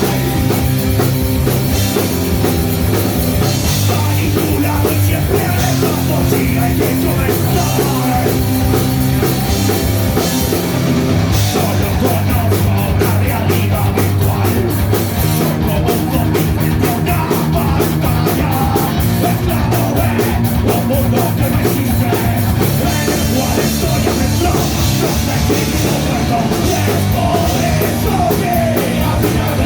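Punk rock band playing loud and steady over a fast, driving drum beat.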